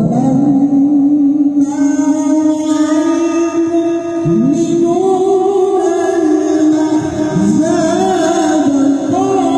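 A man's voice chanting the Qur'an in melodic tilawah. He holds long notes that waver and glide in pitch, breaking only briefly twice.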